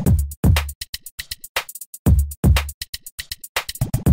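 Background electronic music with a drum-machine beat: pairs of heavy kick drums about every two seconds over quick, light hi-hat ticks.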